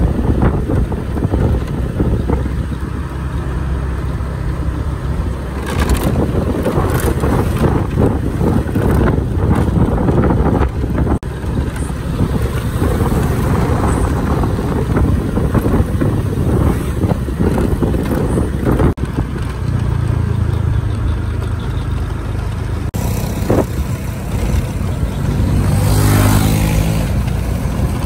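Road traffic noise: motor vehicle engines running and passing, with one going by close near the end.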